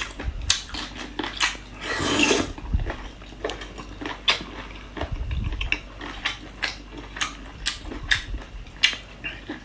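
A person chewing and smacking food close to the microphone, with irregular wet mouth clicks and a longer, louder noise about two seconds in.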